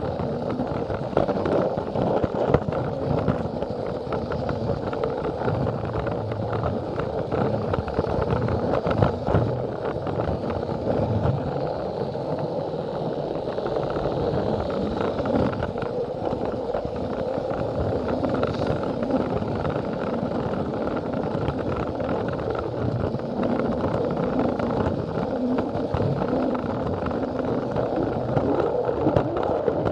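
Plarail battery-powered toy train running on plastic track, heard from a camera riding on it: a steady motor whir with a dense clatter of small clicks from the wheels and track joints.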